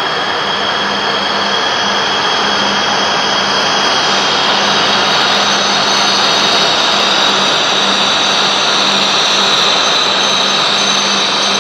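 JR West W7 series Shinkansen train pulling in to stop at a station platform: a steady rushing of wheels and air that grows a little louder as it approaches, with a thin high whine above it.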